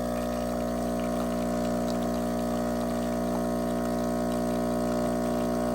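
De'Longhi Stilosa espresso machine's vibratory pump humming steadily as it forces water through the coffee while pulling an espresso shot.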